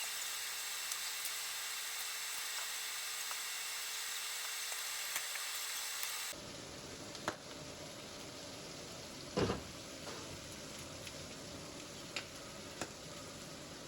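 Food sizzling as it fries in a pan, a steady hiss. About six seconds in it switches abruptly to a quieter, lower frying noise with a few light clicks and one loud knock near the middle.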